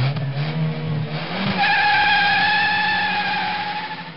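Race car engine revving, then a long, steady high-pitched squeal from about a second and a half in, fading out near the end.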